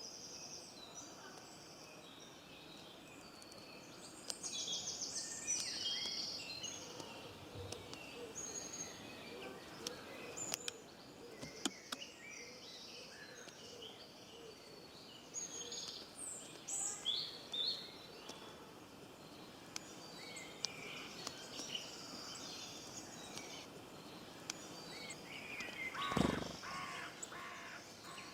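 A mixed chorus of songbirds singing and calling, with many short chirps and trills overlapping. A louder, lower call stands out near the end.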